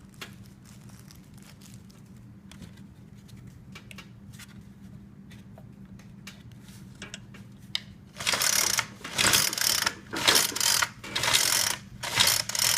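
The recoil starter of a Troy-Bilt TB575 EC four-cycle string trimmer, its rope pulled briskly about once a second starting some eight seconds in. The engine is being cranked over without firing, to check the spark plug for spark.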